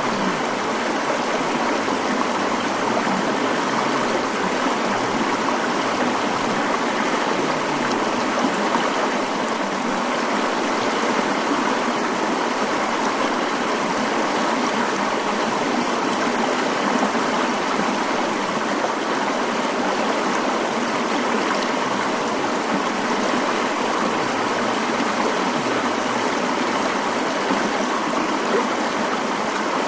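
Mountain stream running, a steady, unbroken rush of water.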